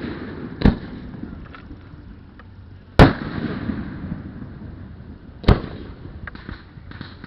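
Aerial fireworks shells bursting: three loud bangs about two and a half seconds apart, the middle one loudest, each trailing off in a low rumble, with a few small crackles near the end.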